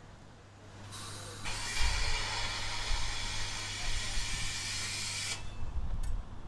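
Compressed air hissing out from a train, which starts abruptly about a second and a half in and cuts off sharply about four seconds later, over a low rumble.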